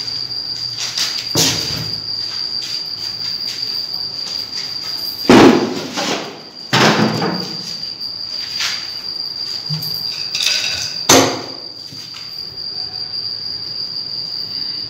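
Several knocks and thumps from laminated wooden cabinet boxes of a small counter being handled and shifted on a bare floor, the loudest about five seconds in. A steady high-pitched whine runs underneath.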